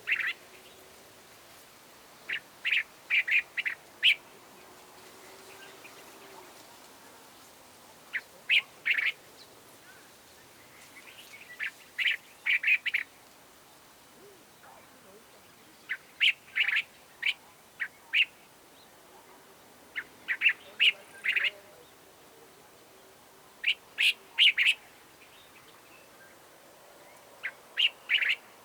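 Cape bulbul calling: short phrases of three to six quick notes, repeated about every three to four seconds.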